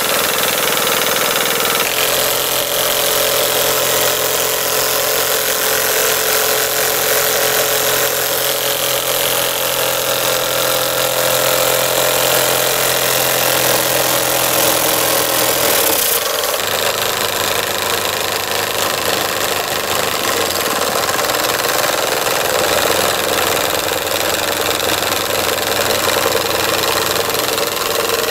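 DM-1 model steam engine running steadily at speed while driving a small dynamo off its flywheel: a continuous hiss with a fast mechanical clatter. Its running note shifts slightly a little past halfway.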